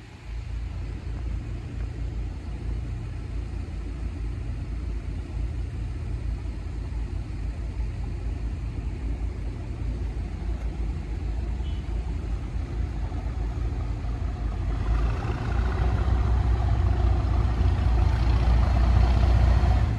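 Class 37 diesel locomotive's English Electric V12 engine approaching: a steady deep rumble that grows louder, with more mid-range engine noise building from about 15 seconds in.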